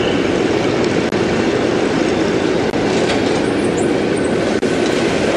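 Textile mill power looms running together, a loud, dense and continuous mechanical clatter.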